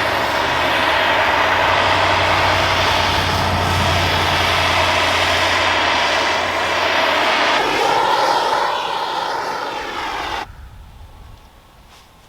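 A steady, loud engine or motor running, cutting off abruptly about ten and a half seconds in.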